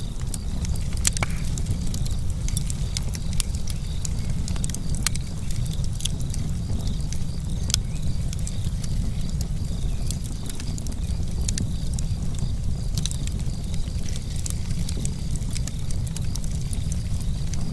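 Wood fire burning: irregular sharp crackles and pops over a steady low rumble.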